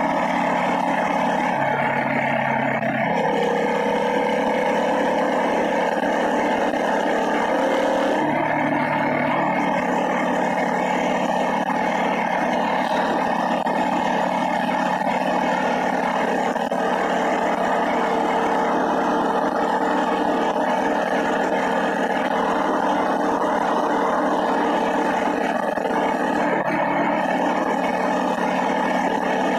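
Small motorized-bicycle engine running steadily while riding. The engine note shifts about two seconds in and again about eight seconds in, and rises slowly in between.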